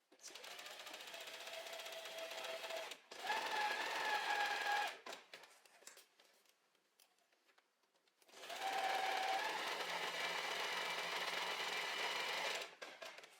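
Domestic sewing machine running in three bursts of stitching, sewing a seam in jersey fabric, with a short break about three seconds in and a longer pause in the middle.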